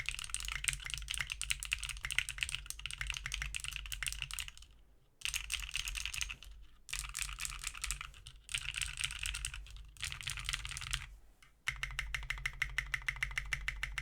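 Fast, continuous typing on an Array 65 mechanical keyboard (O-ring-mounted, FR4 plate) fitted with Pink Robin switches and Tai-Hao keycaps. The keystrokes come in dense runs broken by four brief pauses.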